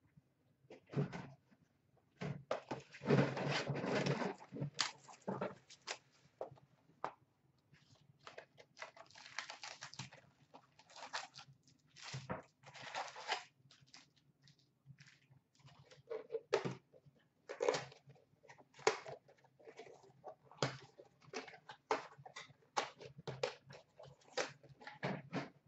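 Trading cards and a cardboard card box being handled on a glass counter: irregular rustling and scraping with light taps and thumps, with a longer stretch of scraping rustle a few seconds in.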